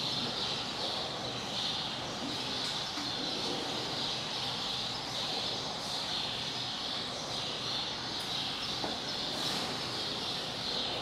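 Outdoor ambience made up mostly of a steady, high-pitched chirring that swells and fades about once a second, over a faint background hum, with no distinct events.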